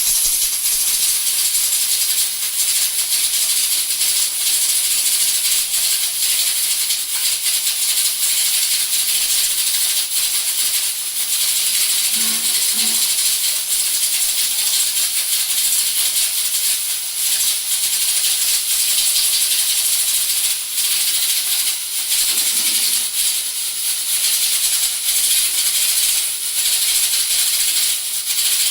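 Two Prestige pressure cookers venting steam at full pressure: a loud, steady hiss with a high whistle and the fast rattling flutter of the whistle weights.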